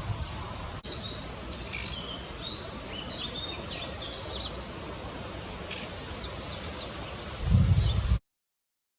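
Small songbirds singing outdoors, a run of quick, varied chirps and short whistled notes, some sweeping up or down. A low rumble comes in near the end, and the sound cuts off abruptly about eight seconds in.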